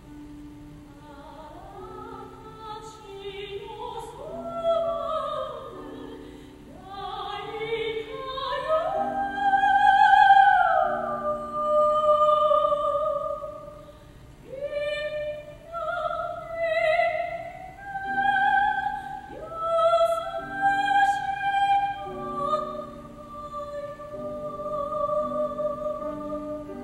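Operatic soprano singing a Japanese art song in classical style with vibrato, accompanied by piano. The voice comes in about a second in and sustains long, wavering notes.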